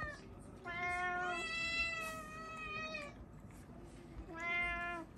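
Domestic cat meowing: a long, drawn-out meow in the first three seconds and a shorter one near the end. It is begging for food at the breakfast table.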